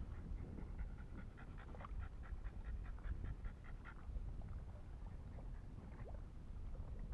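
French bulldog panting rapidly, about four breaths a second, stopping about four seconds in, over a low steady rumble.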